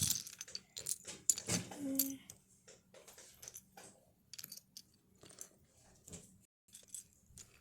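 Plastic Lego bricks clicking and rattling as they are handled, a string of small sharp clicks, busiest in the first few seconds and sparser after.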